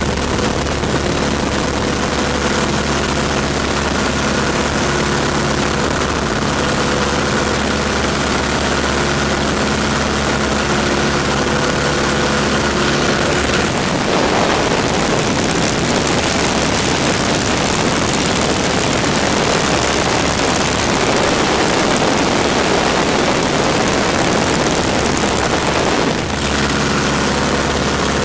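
Tiger Moth biplane's de Havilland Gipsy Major four-cylinder engine and propeller running steadily, heard from the open cockpit with wind rushing past. About halfway through the engine note drops out under a louder rush of wind for some twelve seconds, then the steady engine note comes back near the end.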